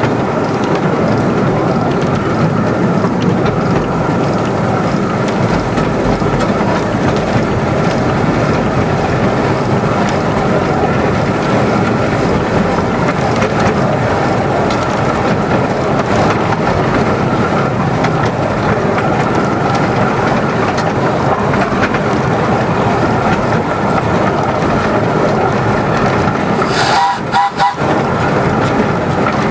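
Miniature 10¼-inch gauge steam train running along the line, heard from an open carriage just behind the locomotive: a steady rumble and rattle of wheels on the track, with a brief burst of hiss about three seconds before the end.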